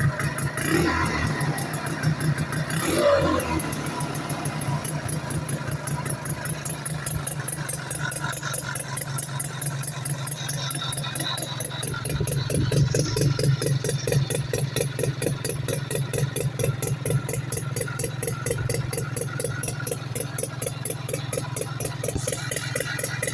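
Freshly rebuilt Sachs rotary (Wankel) motorcycle engine running steadily with a fast, even beat. It is revved up briefly about a second and three seconds in, and again in a longer surge around the middle.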